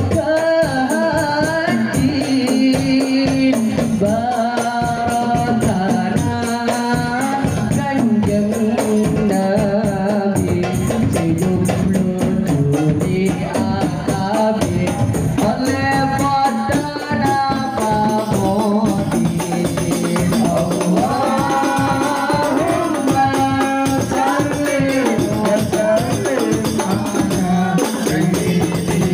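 Sholawat sung by a solo voice through a microphone, backed by an Al-Banjari ensemble of hand-struck frame drums in a steady, busy rhythm, with tambourine jingles throughout.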